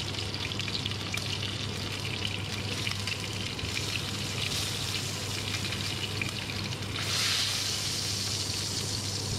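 Hot oil sizzling steadily in a frying pan as browned lamb chops are lifted out with tongs, the sizzle swelling for about a second near seven seconds in, over a steady low hum.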